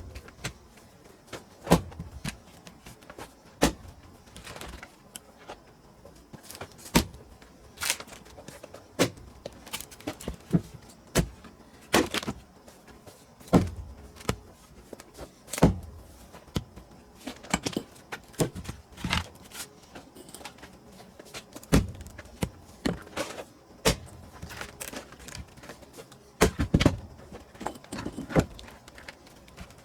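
Pine firewood being split: sharp strikes of a splitting tool on the wood, one every second or two, with lighter knocks between them.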